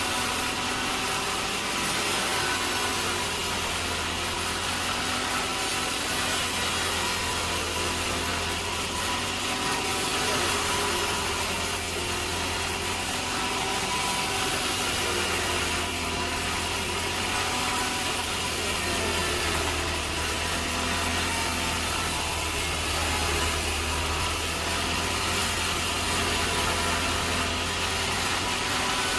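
Sawmill saw running steadily through timber over a constant motor hum, with no break in the cut.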